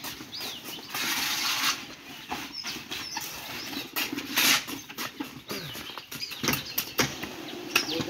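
Wet concrete tipped out of a metal bucket into plastic-lined wooden formwork. Two short sliding, slushing pours, about a second in and past the middle, with knocks and scrapes of the bucket in between.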